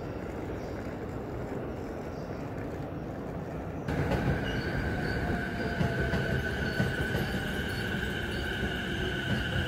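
Electric commuter trains running through the station: a steady low rumble, then about 4 s in a louder rumble with a steady high-pitched squeal over it.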